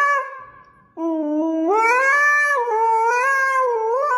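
Husky howling into a handheld toy karaoke microphone. One howl dies away during the first second, then a long new howl starts about a second in, rises in pitch and wavers up and down.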